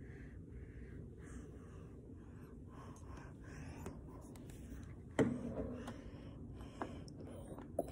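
Faint rustling and handling noise from a phone being moved about, with a sharp knock about five seconds in and two lighter clicks near the end.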